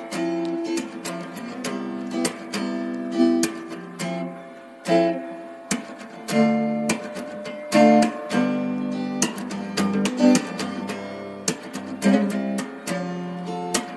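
Background music of plucked and strummed guitar-like notes, a steady run of notes with sharp attacks.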